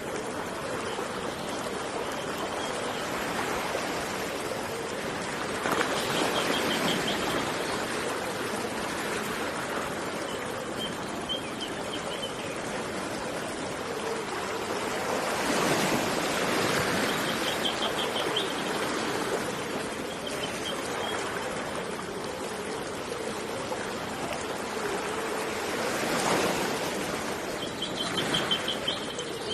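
Steady rush of running water, swelling louder about every ten seconds, with short high chirping trills several times over it.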